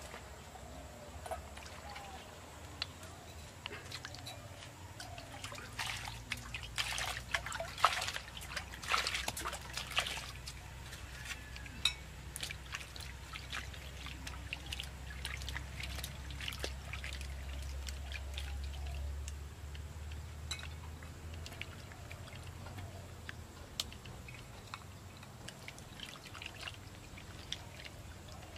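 Water splashing, dripping and trickling as hands wash tomatoes in an aluminium pot of stream water, with a flurry of splashes about six to ten seconds in.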